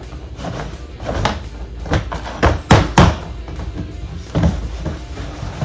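Cardboard box and plastic packaging being handled and rummaged through, with a run of knocks and clicks, the two loudest knocks close together about three seconds in.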